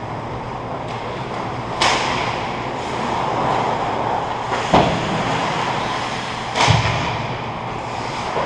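Ice hockey game in play: a steady scraping hiss of skates on the ice, with three sharp knocks of stick and puck, about two seconds in, near the middle, and about two-thirds through.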